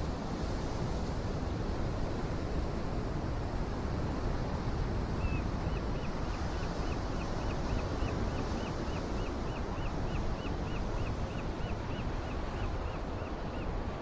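Ocean surf washing over a rocky shore, a steady rushing with a low rumble of wind on the microphone. From about five seconds in until near the end, a string of high chirps repeats about three times a second over it.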